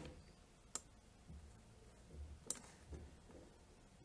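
Near silence broken by two short, sharp computer clicks, one under a second in and another about two and a half seconds in, as a document is being opened on the screen.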